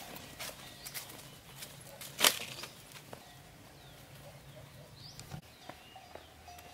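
Footsteps and rustling of clothes and a backpack while walking through grass and brush, a few short rustles with the loudest about two seconds in. Faint bird chirps come in the later part.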